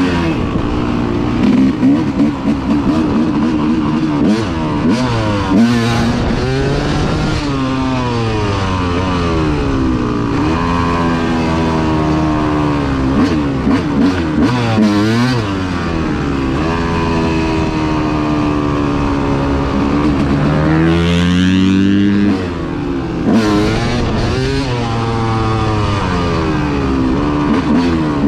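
Dirt bike engine under way, heard from the bike itself, its pitch rising and falling again and again as the throttle is opened and closed, with a sharp rise and drop about three-quarters of the way through.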